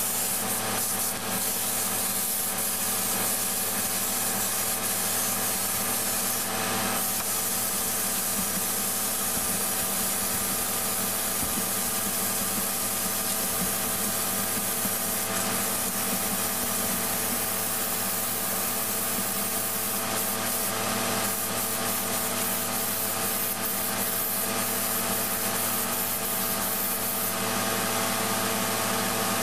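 Harbor Freight mini touch-up spray gun hissing steadily as it sprays paint onto a steel wheel, over a steady mechanical hum.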